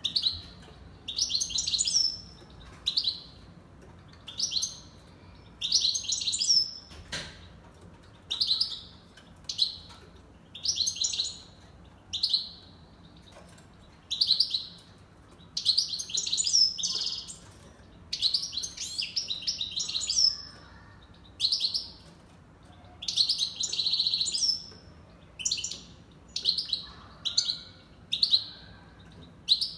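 Caged pet finch chirping in short high phrases, one every second or so.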